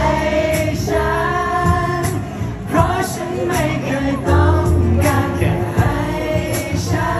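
A man singing a Thai pop song live into a handheld microphone over backing music.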